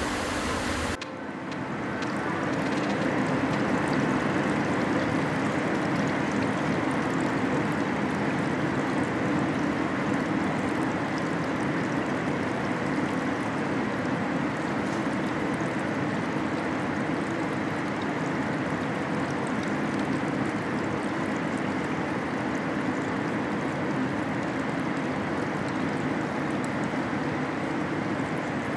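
Steady rushing, watery noise of a car-body paint line, with a low hum underneath. It changes about a second in, then builds for a few seconds and holds steady.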